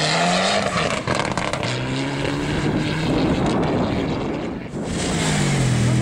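Mitsubishi Lancer Evolution rally car's turbocharged four-cylinder engine revving hard as it powers out of a corner, its pitch climbing and dropping through several gear changes. Near the end, a second rally car's engine rises as it comes closer.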